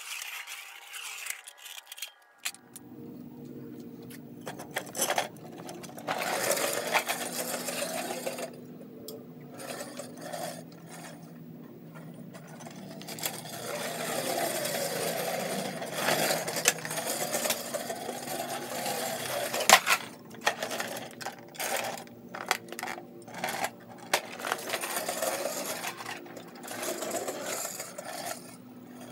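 Hard 3D-printed PLA wheels of a Razor kick scooter rolling over asphalt: a rough, rattling rumble that grows louder and quieter as the rider circles. A few sharp knocks, the loudest about two-thirds of the way through.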